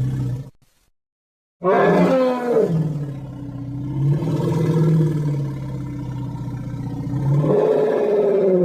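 A deep creature roar sound effect. One sound ends about half a second in, and after a second of silence a single long roar starts, dropping in pitch at first, holding steady, then swelling again near the end before cutting off.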